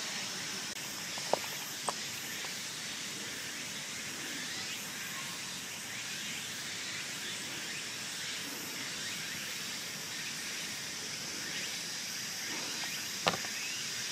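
Steady outdoor background hiss, with three short sharp clicks: two a little over a second in and a louder one near the end.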